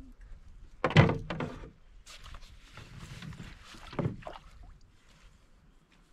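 Knocks and thuds against a canoe, one loud knock about a second in and a few lighter ones after it.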